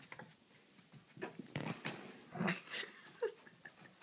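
A Vizsla dog mouthing and pawing at a cat toy, giving several short knocks and clatters, with a brief whine about three seconds in from a dog frustrated that he can't get the mouse out.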